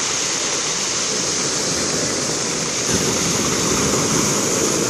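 Black Sea waves washing onto the shore, a steady rushing hiss that swells about three seconds in.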